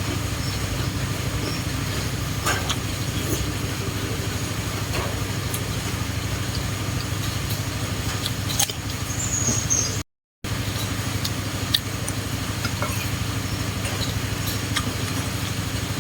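A steady low mechanical hum with scattered light clicks and taps of eating utensils and chewing. The sound cuts out briefly about ten seconds in.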